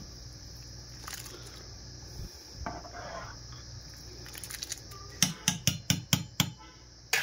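A perforated steel skimmer moving through a pot of parboiling biryani rice, then rapping sharply against the steel pot about seven times in quick succession, roughly five a second, about five seconds in. A steady hiss runs underneath.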